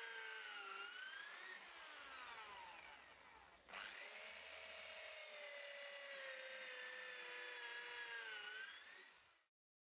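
Corded electric drill boring holes through a timber post, running faintly with its motor pitch rising and falling under load. About three and a half seconds in it stops, then spins straight back up. It winds down near the end.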